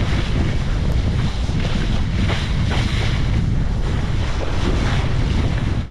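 Heavy wind buffeting the microphone over rushing, splashing water as a kiteboard skims across choppy lake water; it cuts off abruptly at the very end.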